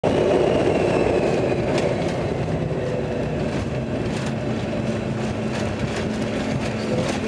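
Airliner cabin noise as the plane rolls on the ground after landing: a steady low jet-engine rumble, with a faint whine that falls over the first couple of seconds as the engines spool down, and a few faint clicks.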